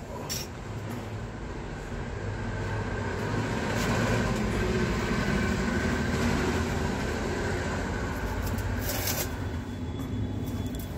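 An engine or motor running steadily with a low hum and a faint high whine, growing louder over the first few seconds and easing off toward the end.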